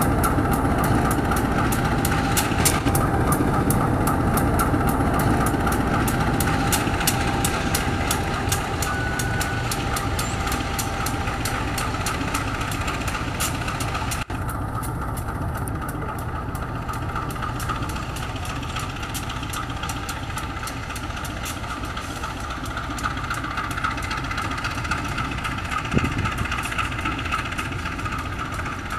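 A CC 201 diesel-electric locomotive's engine running at low power while the locomotive shunts slowly: a steady rumble that slowly fades, with fast, even clicking over it for the first half.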